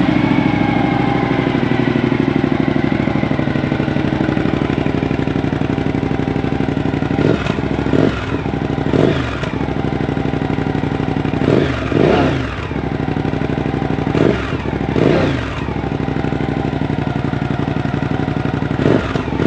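Suzuki V-Strom 1050 XT's V-twin engine idling through a newly fitted Mivv Speed Edge exhaust just after its first start. From about seven seconds in it is revved in several short throttle blips, each rising and falling back to idle.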